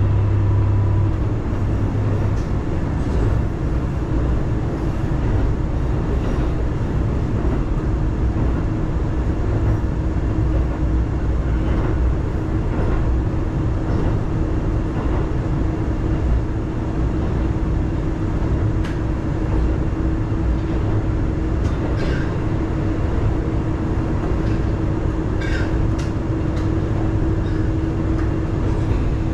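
Diesel railcar of the Hitachinaka Seaside Railway running at steady speed: a constant low rumble with a steady hum over it. A deeper drone drops away about two seconds in, and a few faint clicks come in the second half.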